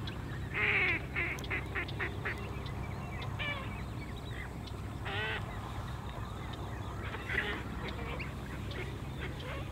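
Birds honking in short repeated calls, the loudest about half a second in and others around five and seven seconds in, over a steady low hum.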